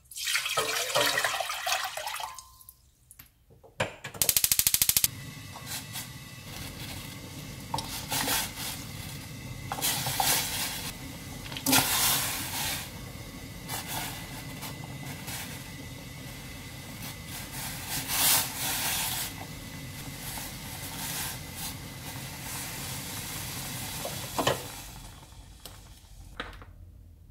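Beef bone broth poured from a container into a steel pot for about two seconds, splashing. About four seconds in, a quick run of evenly spaced clicks like a gas hob igniter, then a steady hiss of the burner and heating pot, broken by several brief louder noises as the soup is cooked.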